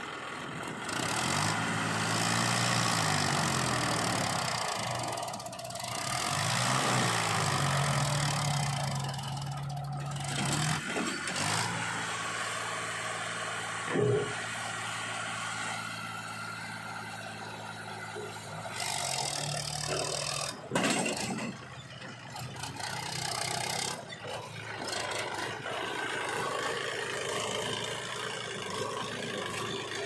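Sonalika DI 35 RX tractor's diesel engine working under load as it pulls a trolley heaped with soil, its pitch rising and falling several times with the throttle and holding steady in between. A couple of short, sharp knocks come through partway along.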